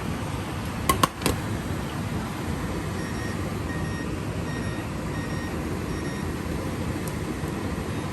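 A kitchen appliance beeping about five times in short, evenly spaced electronic beeps, after three sharp clicks about a second in, over a steady whooshing background noise.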